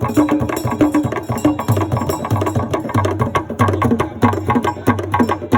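Traditional Ikwerre wrestling music: fast, steady drumming with low drum notes under quicker, higher struck notes in an interlocking rhythm.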